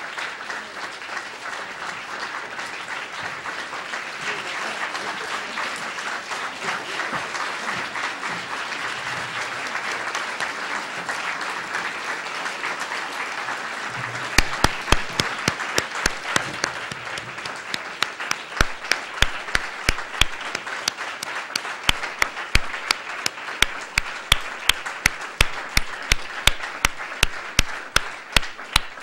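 Audience applause, a dense steady clapping. From about halfway through, loud sharp single claps stand out at a steady pace of about three a second.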